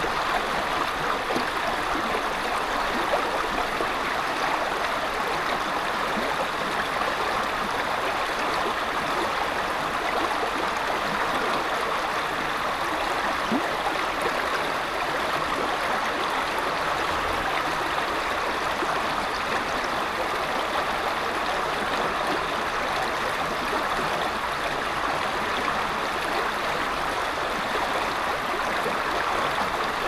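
Small woodland stream flowing over rocks, a steady, even sound of running water.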